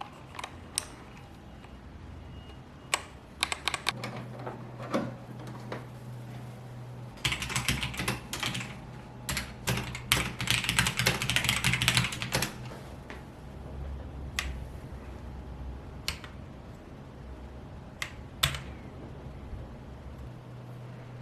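Typing on a Ziyoulang K3 mechanical keyboard with red switches. A few scattered keystrokes, then a fast run of typing from about seven seconds in that lasts some five seconds, then occasional single key presses.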